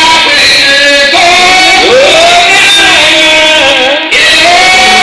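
Voices singing a hymn, loud, with held, gliding notes and a brief dropout about four seconds in.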